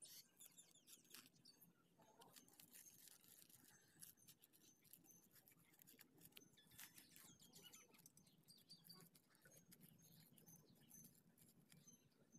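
Faint scratching and crunching of a small hand tool loosening soil in a sack, with scattered light clicks.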